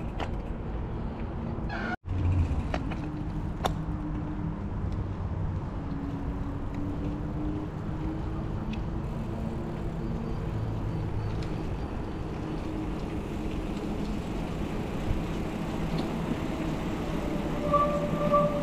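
Steady wind rumble and tyre noise from a mountain bike rolling on wet pavement, with a momentary dropout about two seconds in and a short high whine near the end.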